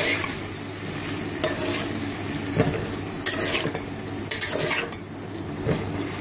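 Chicken pieces and spice masala frying in hot oil in a metal pot, sizzling steadily while a metal spatula stirs and scrapes through them in repeated strokes.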